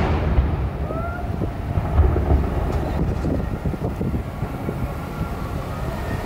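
Fireworks display: the low, continuous rumble and echoing booms of aerial shells bursting, with a heavier thump about two seconds in and a short rising whistle about a second in.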